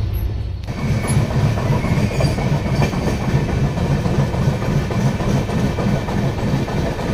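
Passenger train running at speed: a steady rumble of the coaches with a rhythmic clatter of wheels over the rails.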